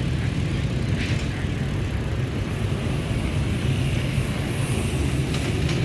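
Steady low rumble of road traffic: vehicle engines running at a busy street crossing.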